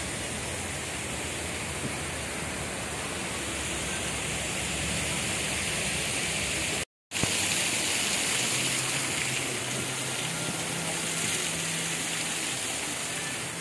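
Steady rushing of water from a small man-made waterfall and stream. About seven seconds in it drops out to silence for a moment, then comes back slightly louder.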